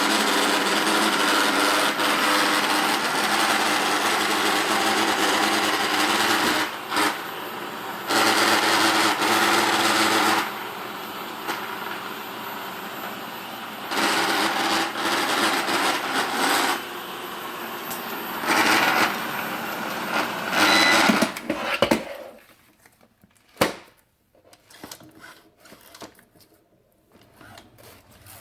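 Eufy robot vacuum running with a loud, steady motor whir that is treated as a fault noise. The whir swings between louder and quieter stretches several times, stops about 22 seconds in, and is followed by a few faint clicks.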